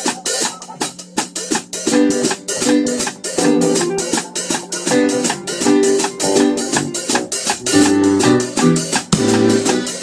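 A live band playing together: electric keyboard, electric guitar and drum kit, over a quick steady cymbal beat.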